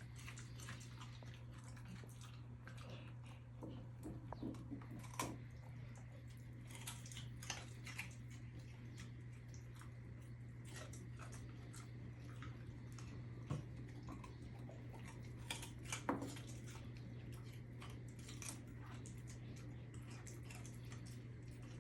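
Senior dog crunching and chewing a raw carrot: irregular crisp crunches and clicks, a few louder bites, over a steady low hum.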